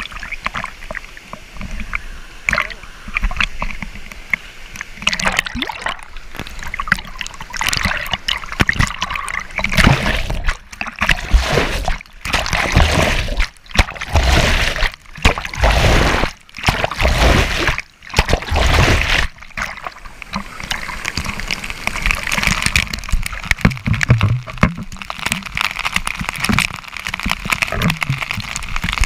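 Pool water sloshing and splashing against a camera held at the surface while swimming, with several brief muffled dropouts in the middle as it ducks under. Near the end the pouring spray of the waterfall splatters over it.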